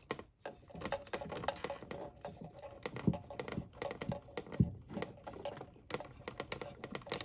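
Electrical wires and a plastic wall switch being handled at a switch box: a quick, irregular run of small clicks and taps as the ground wires are connected.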